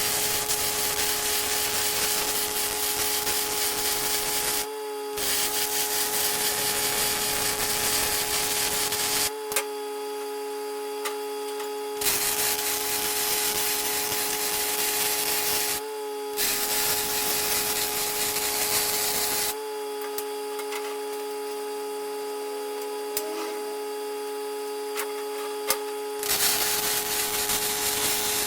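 Power tool running with a steady motor whine, grinding or sanding a surface in stretches of a few seconds. Between them the tool is lifted off and only the whine goes on.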